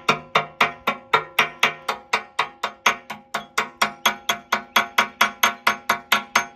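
A hammer striking steel in a fast, steady rhythm of about five ringing blows a second.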